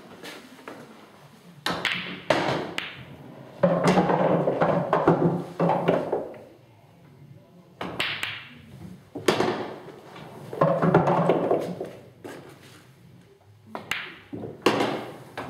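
Pool balls clacking as they are struck by the cue and knock together in several sharp clicks. There are two longer rumbling stretches of a couple of seconds each, like potted balls rolling through the pool table's ball-return channel.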